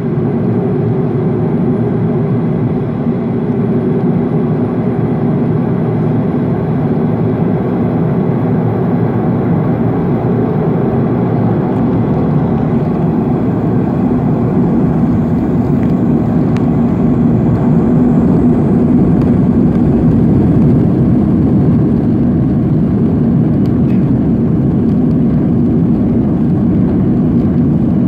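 Boeing 737-500's CFM56 jet engines heard inside the cabin over the wing: a steady, heavy rumble that slowly grows louder as the aircraft rolls along the runway, with a faint high whine climbing in pitch.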